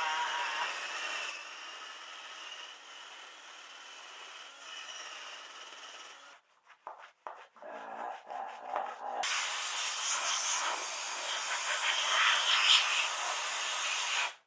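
A brush scrubbing soapy grease and scale off a greasy LS V8 engine with steady rasping strokes. It goes quiet with a few clicks about halfway through, then comes back louder and harder for the last five seconds.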